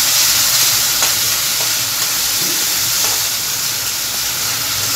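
Chopped onion, garlic cloves and tomato sizzling steadily in hot ghee in a steel pan while being stirred: the onion-tomato tempering (tadka) frying.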